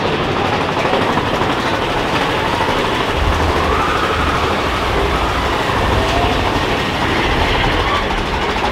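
Mine-train roller coaster running along its track, a steady rattling rumble of cars and wheels with a heavier low rumble from about three seconds in.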